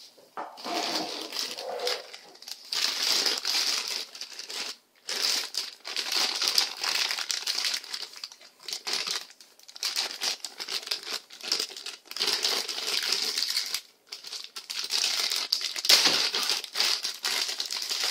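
Thin clear plastic bag crinkling as hands handle a coiled cable inside it and pull it out. The rustling comes in long stretches, broken by short pauses about five seconds in and about fourteen seconds in.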